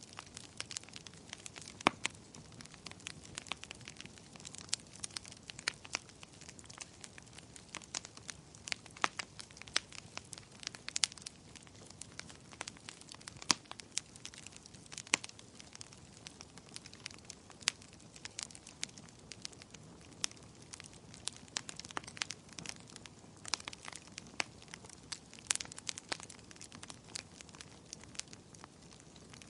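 Wood fire crackling: irregular sharp pops and snaps, several a second, over a soft steady hiss of burning.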